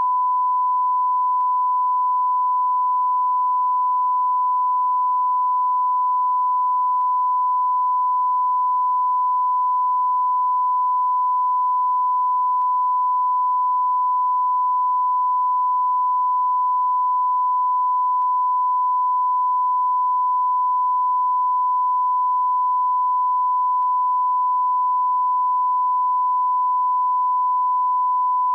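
A continuous electronic beep: a single steady pure tone held without a break or any change in pitch or loudness.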